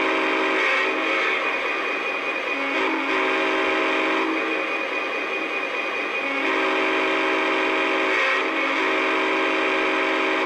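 Sampled diesel horn from an O-gauge GP35 model's RailSounds 4.0 sound board, played through its onboard speaker: four blasts of a multi-tone horn, each one and a half to two seconds long, over a steady diesel engine sound.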